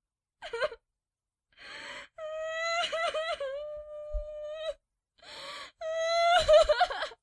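A person crying all out: long pitched wails broken by sobs, with a noisy gasping in-breath before each wail. There are two wails, the first lasting about two and a half seconds.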